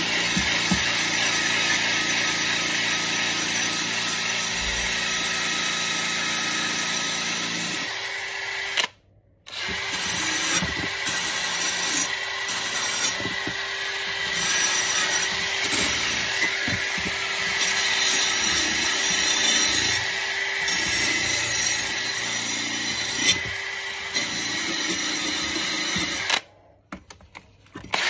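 Handheld electric power tool running steadily against the metal of an old rusty steel trowel, cleaning off the last of the rust. It stops briefly about a third of the way in and again near the end.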